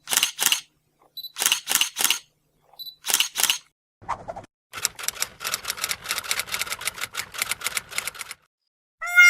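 Camera shutter sound effect: three times a short autofocus beep followed by two or three shutter clicks, then a rapid continuous burst of shutter clicks at about six a second for several seconds.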